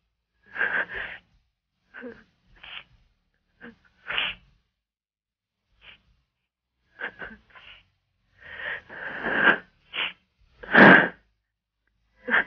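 A woman sobbing over a telephone line: irregular gasping, breathy bursts with short pauses, the strongest sob near the end.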